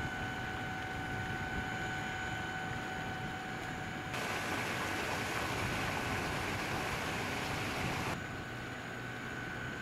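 Steady outdoor background noise with a faint, even two-note hum over it. For a few seconds in the middle a louder, hissier rush replaces it, starting and stopping abruptly.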